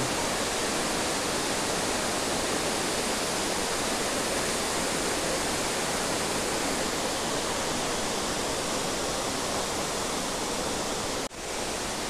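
Steady rush of water from the Jonha Falls waterfall, with a momentary break near the end.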